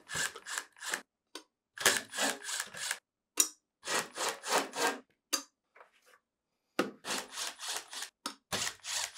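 Sheet-metal screws being backed out of a refrigerator's compressor access cover with a 5/16-inch nut driver: short rasping strokes of the screw threads turning in the metal, three or four a second, in runs with brief pauses between them.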